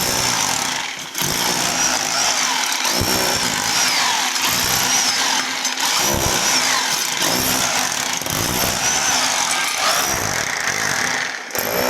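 Electric hammer drill chiselling into a concrete floor to dig down to a leaking water pipe, running steadily with short pauses near the start and shortly before the end.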